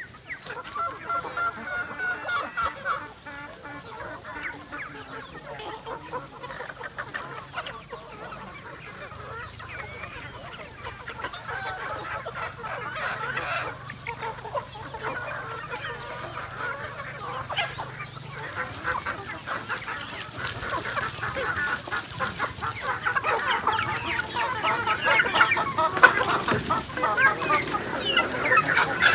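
A large flock of free-range chickens clucking as they peck at scattered feed: many short calls overlapping, getting busier and louder over the last ten seconds.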